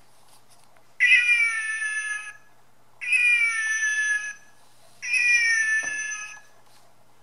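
Sound button on an Axel Scheffler 'Katie the Kitten' buggy buddies board book playing its recorded cat meow three times, about two seconds apart. Each meow lasts over a second and falls slightly in pitch, and all three sound the same.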